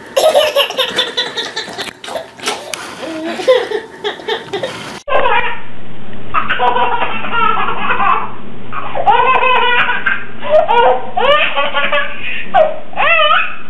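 A baby laughing hard, in repeated belly laughs and giggles. About five seconds in, a cut brings in a duller recording of a baby's high, squealing laughter.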